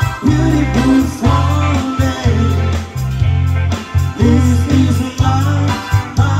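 Live amplified band playing a pop song: female voices singing over electric guitar, electric bass, drum kit and keyboard. The bass notes and drum hits keep a steady beat.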